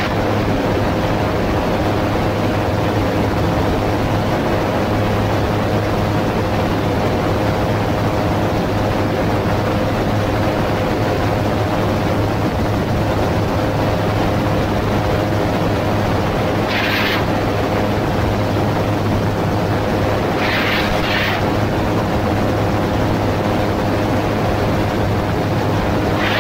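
AutoGyro MTOsport gyroplane in cruising flight: the steady drone of its pusher engine and propeller, with wind noise in the open cockpit. Two short hisses come about two-thirds of the way through.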